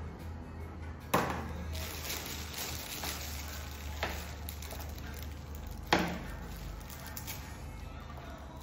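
Kitchen knife knocking on a plastic cutting board while dicing red pepper: a few separate sharp knocks, the strongest about a second in and about six seconds in, with a lighter one between. A steady low hum runs underneath.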